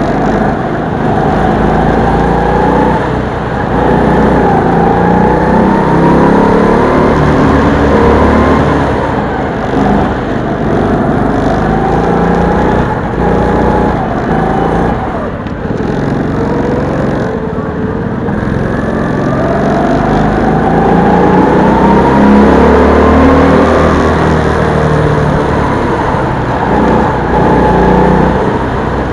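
Go-kart engine heard from onboard, its pitch rising in long glides as the kart accelerates and falling away as it slows for corners, several times over.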